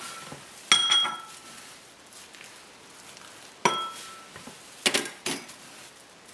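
Wooden spoon knocking against a glass mixing bowl while stirring stiff oatmeal cookie dough: about five sharp knocks, the first few with a short glassy ring, and soft scraping of oats between them.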